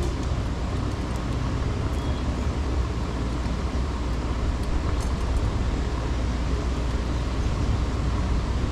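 Steady outdoor city ambience: wind buffeting the microphone, heaviest in the low end, over a wash of road traffic noise.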